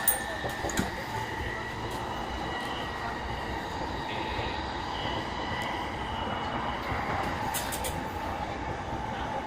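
Running sound inside a JR East E233 series 3000-subseries electric commuter train travelling between stations: a steady rumble of wheels on rail with a faint steady high hum. A few sharp clicks come just after the start and again near the end.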